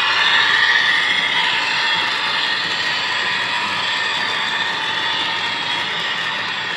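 O scale model train cars rolling along the track past the microphone, a steady rolling rumble and whir that eases off slightly as the train moves away.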